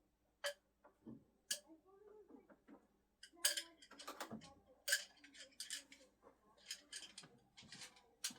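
Flathead throwing screwdrivers clicking and knocking: two sharp clicks about a second apart, then a quick, irregular run of clicks and taps from about three seconds in until near the end.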